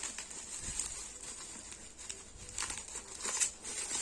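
Packaging being handled and crinkled while a charger is unboxed: an irregular rustle with a few sharper crackles about two and a half and three and a half seconds in.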